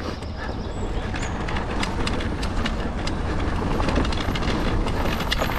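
Haibike AllMtn e-mountain bike rattling over a rocky trail section, with many sharp knocks and clicks over a steady low rumble of tyres and wind.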